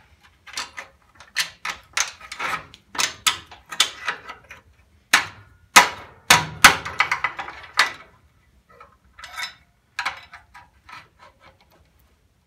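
Irregular sharp metal knocks and clanks on steel, about a dozen hard strikes with a brief ring, giving way to lighter, sparser taps about eight seconds in.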